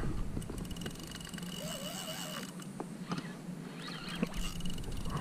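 Fishing reel clicking rapidly as a hooked fish pulls on the line.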